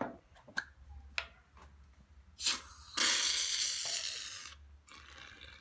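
Aerosol can of shaving foam spraying into a plastic bowl: a short spurt, then a longer hiss of about a second and a half that fades out. A few light clicks come before it.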